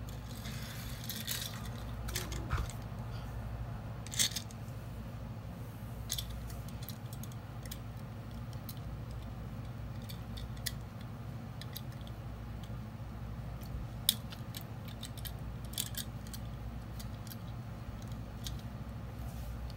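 Hands handling a small die-cast toy car and its clear plastic bag on a hard floor: a brief plastic rustle about a second in, then scattered light clicks, the sharpest about two thirds of the way through, over a steady low hum.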